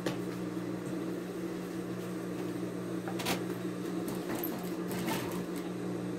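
Electric sewing machine running steadily with a constant motor hum, with a single sharp click about three seconds in.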